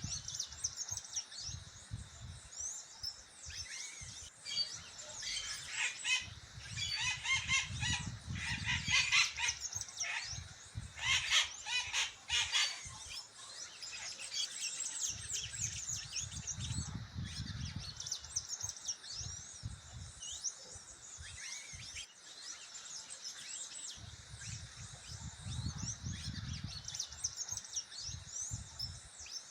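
Several birds singing together: dense, rapid high chirping throughout, with louder, fuller calls between about 5 and 13 seconds in.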